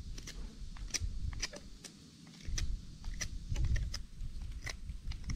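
Campfire crackling, with irregular sharp pops over a low rumble.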